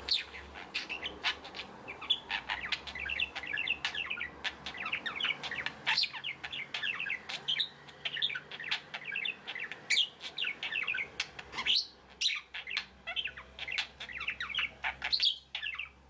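Budgerigar chattering and warbling: a fast, continuous run of high chirps and sharp clicks, with a brief pause about twelve seconds in.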